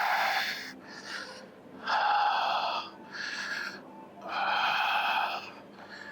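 A person breathing hard: three long, forceful exhales about two seconds apart, in the rhythm of exercise repetitions.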